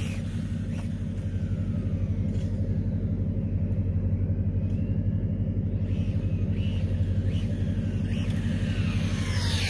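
Kyosho Fazer 2WD RC pickup's electric motor whining as it drives away and returns, falling in pitch about two seconds in and rising and falling again near the end. A steady low hum runs underneath.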